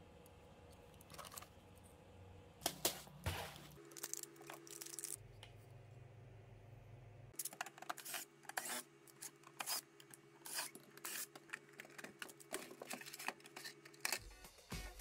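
Cordless driver taking screws out of an old plastic cassette-player case, with a low steady hum and many irregular clicks and clatters of plastic and screws, busiest in the second half.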